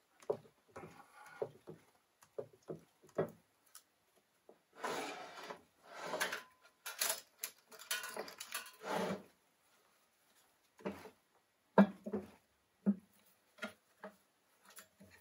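Lycoming O-360 crankshaft being handled in its aluminium crankcase half: a run of light knocks and clunks, a stretch of scraping and rustling handling noise in the middle, then a few sharper metal knocks near the end.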